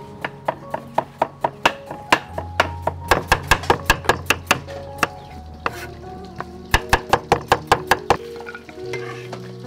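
Background music with a melody, over runs of rapid sharp knocks, several a second, in two bursts with a pause between: a knife chopping on a cutting board.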